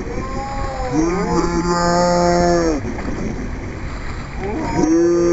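Shouted calls stretched by slow-motion playback into long, low, drawn-out tones that bend up at the start and sag in pitch at the end: one about a second in, and another starting near the end, over a steady rush of water.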